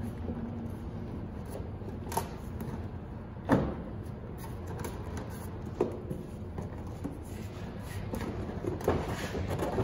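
New plastic headlight assembly being worked into place against a car's plastic bumper cover: a few light knocks and clicks, the loudest about three and a half seconds in, over a steady low background hum.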